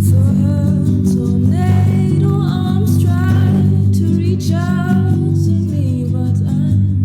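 Music: a song with a singing voice over guitar and a steady low accompaniment.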